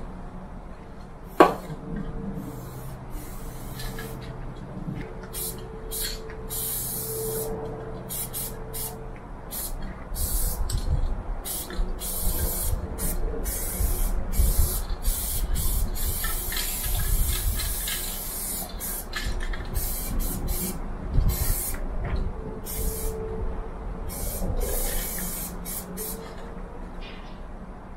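Aerosol spray paint cans hissing in many short and longer bursts, starting and stopping as paint is sprayed onto a freight wagon's side. There is a sharp click about a second in, and from about ten seconds on an irregular low rumble runs underneath.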